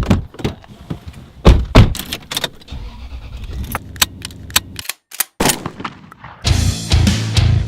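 A run of sharp knocks and clicks, the two loudest close together about a second and a half in, with a brief dead stop just before the fifth second. Heavy-metal background music comes back in near the end.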